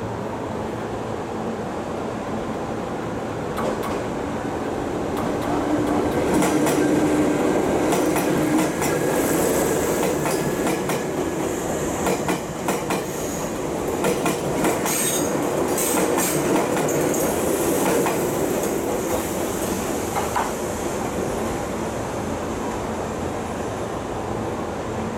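Electric commuter train running past on the adjacent track, its wheels clacking over the rail joints with a few brief squeals. The noise builds from about four seconds in, is loudest in the middle, and fades toward the end.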